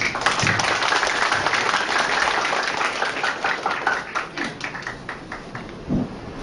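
Audience applauding. The clapping is dense at first, then thins out and fades over the last couple of seconds.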